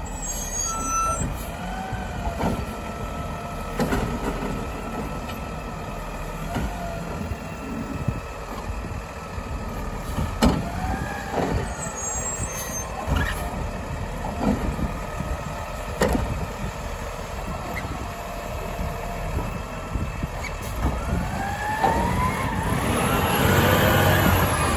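Diesel automated side-loader garbage truck working at the curb: the engine revs up and down as the hydraulic arm lifts and dumps carts, with several sharp knocks of the carts and arm. Near the end the engine revs up loudly as the truck pulls away close by.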